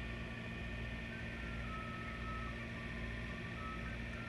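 Ice cream truck idling with a steady low hum, while an electronic chime tune plays as a string of short, thin, high notes at changing pitches.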